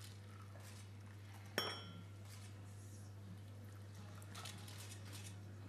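Herb tea pouring from a glass jug into china teacups, with one sharp ringing clink of glass against china about a second and a half in. A steady low hum runs underneath.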